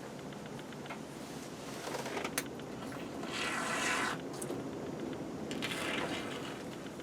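A short hiss of spray foam from an aerosol can, about three and a half seconds in, with a fainter one near the end, among faint rustling and scraping.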